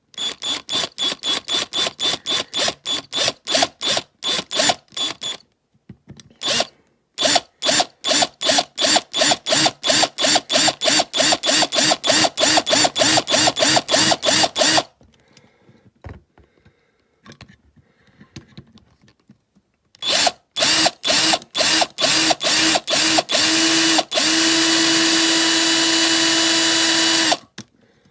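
Small electric drill boring out the rivets of a diecast model car. The trigger is pulsed on and off in rapid short bursts, about four a second, with two pauses, then held for one steady run of about three seconds that stops suddenly near the end.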